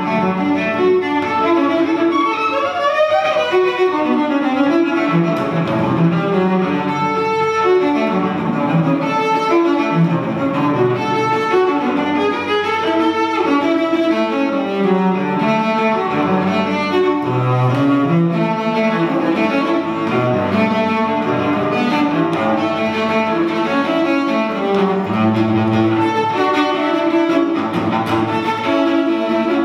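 Solo cello played with the bow, a continuous flow of notes with a few deep bass notes in between.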